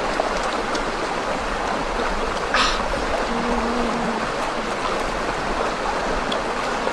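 Steady rushing of a forest stream, with a brief louder splash-like burst about two and a half seconds in.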